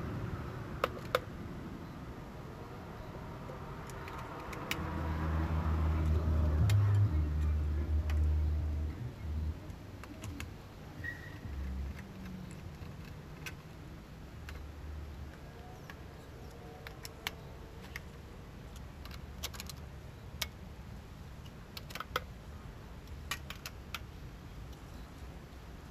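Scattered light metallic clicks and clinks of a screwdriver and small parts being worked on a Yamaha 90 outboard's carburetor. A low rumble rises for about four seconds, starting about five seconds in.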